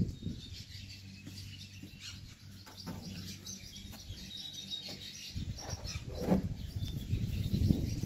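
Small birds chirping faintly, over a low steady hum. In the second half, low thumps and rustling handling noise, the loudest sounds.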